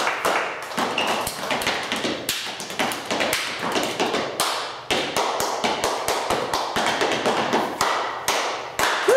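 Body percussion by a small group: many quick, overlapping hand claps and taps mixed with feet stepping and tapping on the floor, with no instruments.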